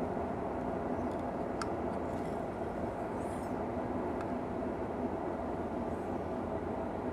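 Steady whir of a small fan-driven machine, with a faint held hum, typical of a heat gun or bench fan running. A few light ticks sound over it.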